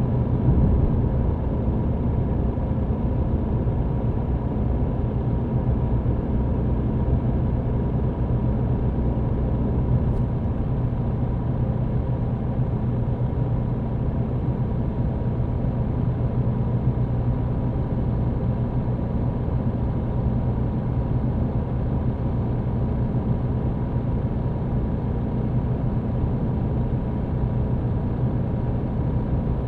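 MAN TGX truck's diesel engine running in a steady drone, heard from inside the cab, together with road noise.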